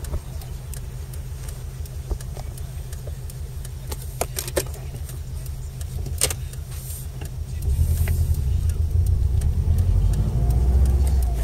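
Subaru Impreza WRX on the move, with a steady low drone from the drivetrain and road that grows louder about two-thirds of the way through, and a few sharp clicks in the middle. The car has worn centre differential bearings, whose noise speeds up with road speed.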